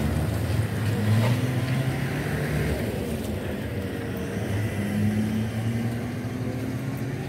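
Motor vehicle engine running near the road, its low hum drifting slowly up and down in pitch.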